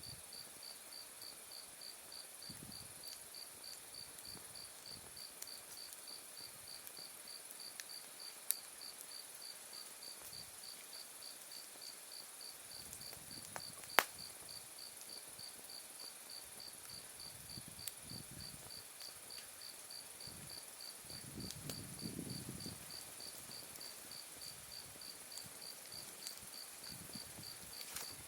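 Autumn night insects, crickets, calling steadily: a regular pulsed chirp with a continuous higher trill behind it. A wood fire crackles now and then, with one sharp pop about halfway through.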